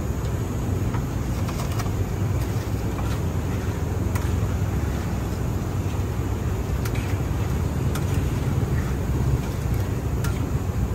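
A steady low rumble, with a few light metallic clicks as a wire spider strainer knocks against a wok of deep-frying food.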